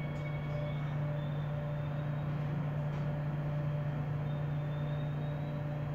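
Seoul Subway Line 9 car interior: steady low hum with a few faint higher tones from the train's running equipment as it draws up at a station platform.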